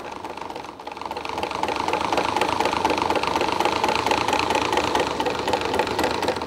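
Corded electric drill spinning the shaft of a cut-open automotive swash-plate air-conditioning compressor: a steady motor whine over a fast clatter of the pistons and swash plate. The sound builds up over the first two seconds, holds steady, and eases off near the end.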